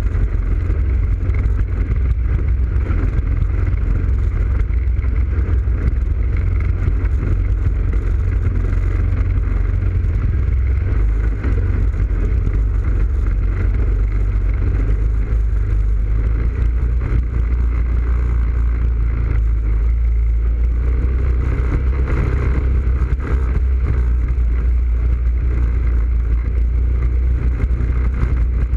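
ATV engine running steadily as the quad rides along a muddy trail, heard from a camera mounted on its front rack, with a heavy, constant low rumble.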